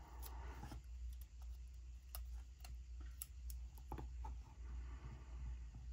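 A handful of faint, scattered clicks and light taps as metal tweezers and fingertips handle and press down a paper sticker on a planner page, over a low steady hum.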